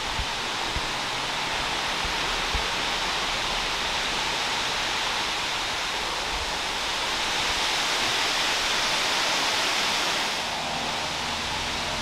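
Steady rush of a waterfall, easing slightly near the end, with a few soft low thumps in the first three seconds.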